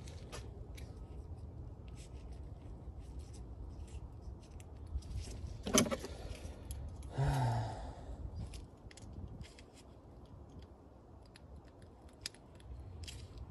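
Small metal hand tools clicking and clinking as bits and a low-profile key are handled and worked on a stuck fastener or bit. There is one sharper clack about six seconds in and a brief louder scrape just after.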